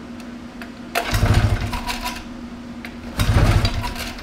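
Rotax 670 twin-cylinder two-stroke snowmobile engine being pull-started by its recoil starter: two hard pulls about two seconds apart, each cranking the engine over with a brief rattling chug that dies away without the engine catching.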